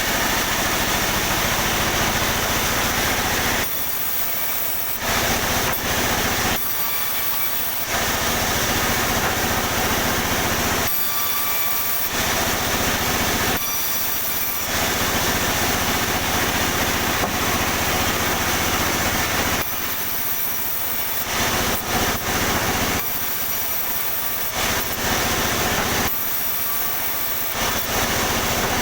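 Sawmill saw cutting pine into boards over a steady engine drone. The cutting noise drops back to the lighter sound of the running machine about half a dozen times between passes.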